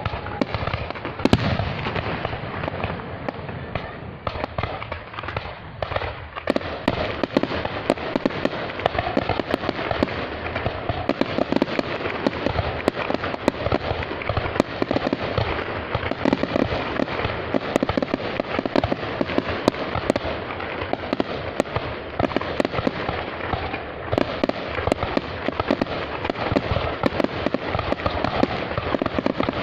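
Fireworks going off in a dense, continuous barrage of pops and bangs, with one loud bang about a second in. The barrage thins briefly about four to six seconds in, then thickens again.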